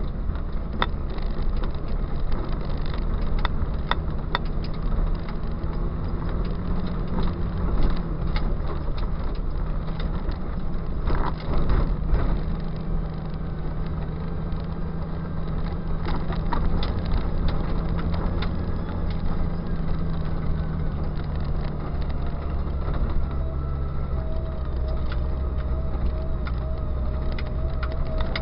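Jeep engine running at low, steady revs while crawling over a rough dirt trail, with frequent short knocks and rattles from rocks and the body. A faint wavering whine comes in over the last few seconds.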